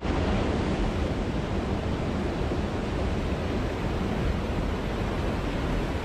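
Forest waterfall: a steady rush of water falling and tumbling over rocks.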